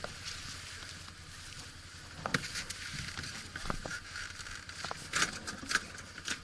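Off-road vehicle engine running low and steady while driving over rough ground, with a series of sharp knocks and clatters, the loudest about two, three and a half, and five to six seconds in.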